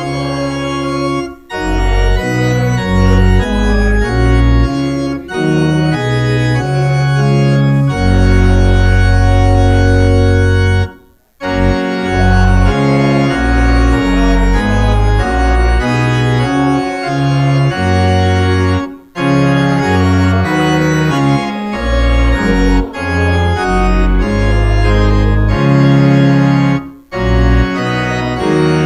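Church organ playing slow, sustained chords over a deep bass line, in phrases separated by brief pauses, the longest about a third of the way in.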